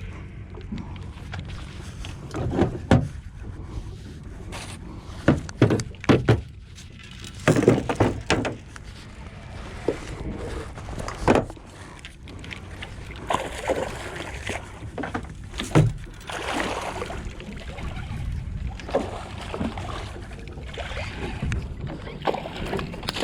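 Irregular knocks and thumps of gear being handled aboard a small fishing boat, over a low steady hum.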